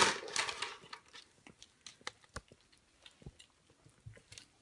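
Kittens eating wet food at their bowls: scattered faint clicks and ticks of chewing and lapping, mixed with small paws moving on the wooden floor, after a brief rustling scrape at the very start.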